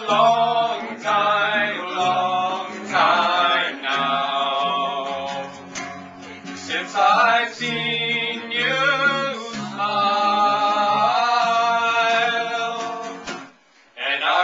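Live band music: male singing over strummed guitar, with a short break near the end before the playing and singing start again.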